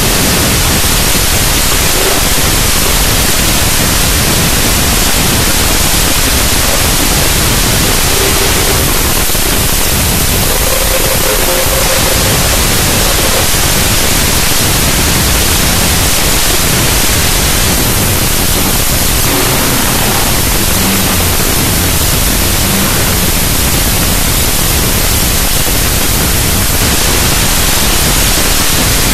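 Loud, steady static-like hiss that covers everything, with a few faint short tones just audible beneath it.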